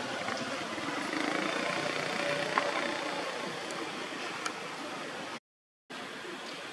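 Steady outdoor background noise with a few faint ticks. The sound drops out completely for about half a second near the end.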